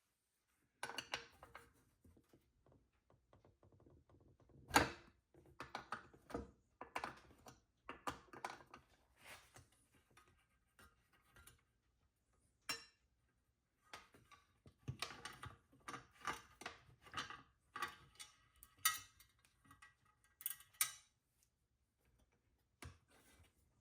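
Irregular clinks, clicks and knocks of small metal parts and hand tools being handled during motorcycle bracket disassembly, the sharpest knock about five seconds in.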